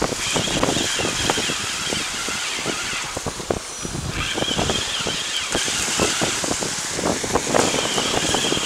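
Wind buffeting the microphone over surf washing in, with the whirr of a fixed-spool fishing reel being wound in, stopping and starting a few times.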